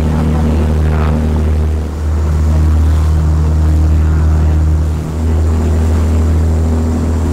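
Taxi boat's engine running steadily under way: a loud, even low drone, dipping briefly twice, about two and five seconds in.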